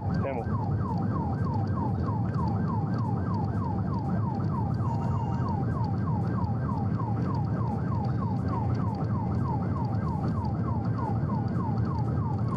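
Police car siren in fast yelp mode, sweeping up and down about three times a second without a break, over steady low vehicle noise.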